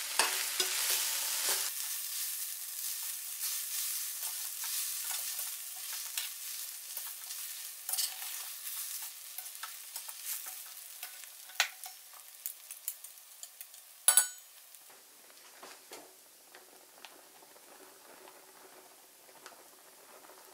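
Kkakdugi fried rice sizzling in a stainless steel frying pan while a metal spatula stirs and scrapes through it, with sharp clinks of the spatula against the pan, the loudest about 14 seconds in. The sizzle fades, and the second half holds only faint sizzling and a few light ticks.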